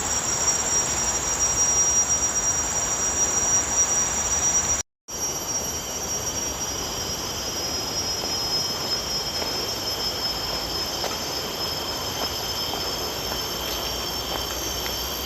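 Chorus of forest insects, several steady high-pitched drones holding on together over a rough hiss. About five seconds in, the sound cuts out for a moment and comes back with the drones at slightly different pitches.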